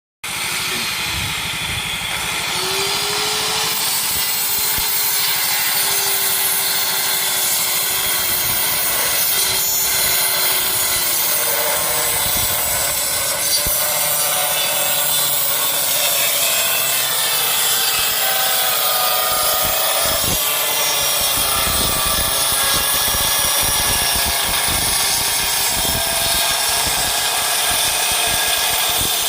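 Circular saw running and cutting through plywood, a steady loud saw noise throughout whose pitch shifts a little as the blade takes the load.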